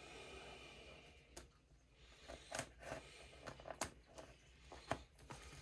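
A few faint scrapes and clicks, about one a second, from a box being handled and opened.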